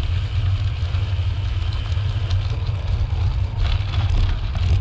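Wind rumbling and buffeting on the microphone of a moving bicycle, under a fainter steady hiss of riding along the path.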